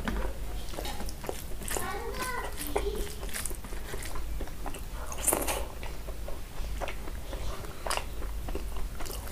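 Close-up chewing and lip-smacking of a person eating curry-soaked potato and rice by hand, a run of small wet clicks. A short murmur comes from the eater about two seconds in.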